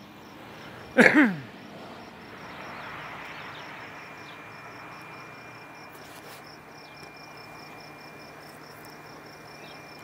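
Cricket chirping in a steady, even high-pitched pulse, several chirps a second, over a faint steady hiss.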